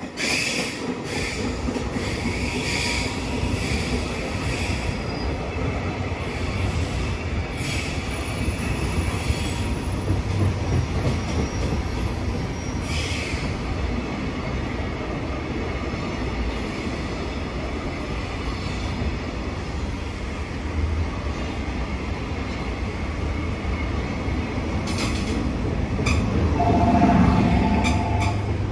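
Container freight train of Koki flatcars running past at speed: a steady heavy rumble of steel wheels on rail, with clatter from the wagons and some wheel squeal.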